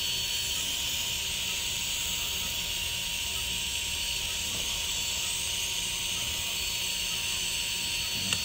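Steady hiss with a faint high tone held through it, and one small click near the end.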